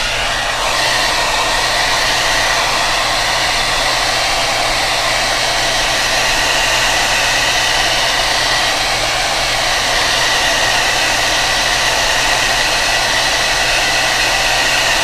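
Hair dryer running steadily on its cool setting at medium speed: a constant rush of air with a faint steady whine.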